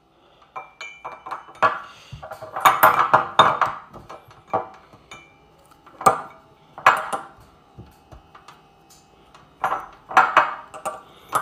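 Ceramic mug and plastic phone charger being handled on a table top: an irregular run of knocks and clinks, several leaving a brief ringing tone.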